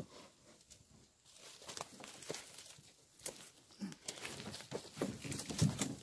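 A small rowboat being turned right side up by hand: a knock, then the hull scraping and rustling against the shore with crackling clicks, busier in the second half.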